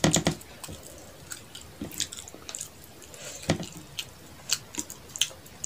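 Close-miked eating sounds: wet chewing and mouth smacks with irregular sharp squishy clicks, loudest right at the start and again about three and a half seconds in, mixed with fingers working curried rice and fish on a plate.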